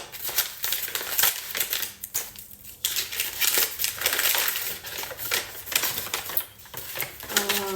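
Plant packaging being unwrapped by hand: dense crinkling and rustling of the wrapping, with brief pauses about two seconds in and again shortly before the end.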